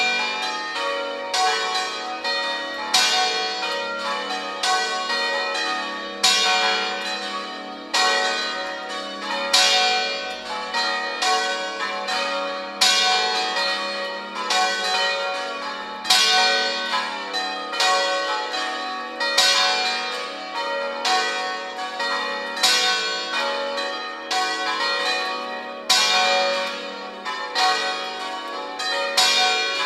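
Five church bells swinging in a full peal (a distesa), their strokes overlapping in a continuous, irregular ringing, with heavier strikes every second or two.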